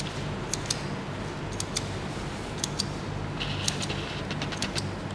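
Light, irregular clicks and taps over a steady low hum, with a short high beep-like tone about three and a half seconds in.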